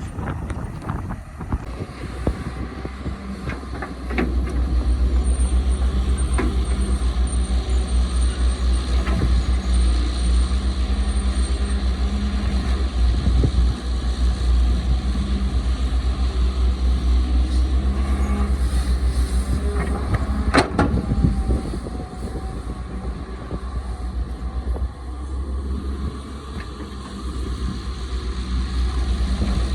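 Caterpillar excavator's diesel engine running with a deep, steady rumble, getting louder about four seconds in and easing off for a few seconds later on. Occasional knocks and clanks, the loudest about two-thirds of the way through.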